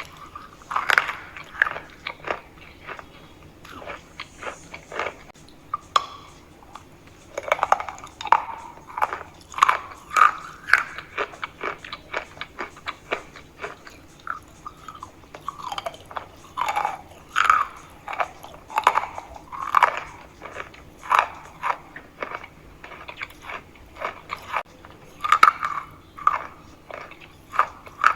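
Close-miked biting and chewing of chalk: repeated crisp, irregular crunches with a few short lulls.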